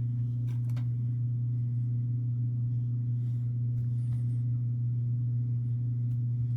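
Steady, unchanging low machine hum, with a few faint brief clicks over it.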